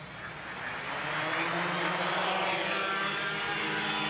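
Quadcopter's four brushless motors and propellers spinning up from idle, the whir rising over about the first second, then holding a steady hum as the copter lifts off into a hover.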